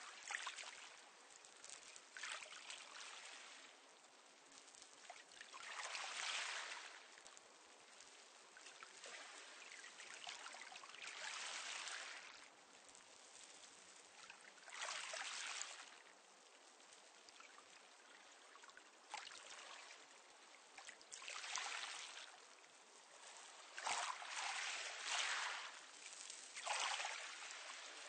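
Small, calm sea waves washing onto a pebble beach, one soft hissing wash every few seconds, with several coming close together near the end.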